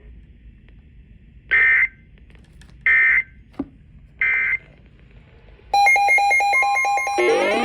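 Three short bursts of EAS digital data tones, the end-of-message code that closes an emergency alert, about a second and a half apart. Near the end a loud pulsing electronic alarm starts, breaking into a rising siren-like sweep.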